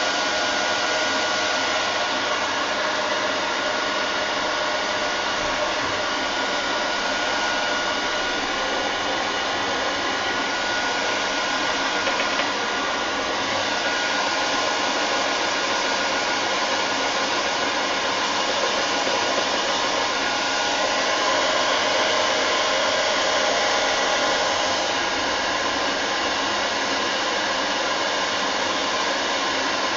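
Handheld hairdryer blowing continuously to dry a wet watercolour painting, a steady whir.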